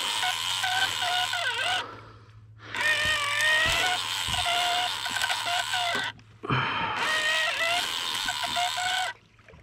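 Fishing reel being cranked to bring a fish up from the bottom: the reel's gears whine, wavering up and down in pitch with the cranking, over a steady low hum. The sound breaks off sharply twice, about two and six seconds in.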